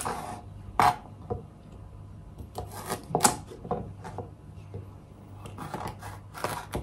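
Kitchen knife dicing carrots on a plastic chopping board: irregular knocks of the blade hitting the board, one sharp knock about a second in and quicker runs of chops around the middle and near the end.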